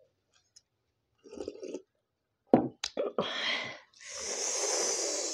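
Close-miked eating mouth sounds: a few wet clicks and a short slurp of dal from a bowl, then a loud, steady breathy hiss of air through the mouth lasting over a second near the end.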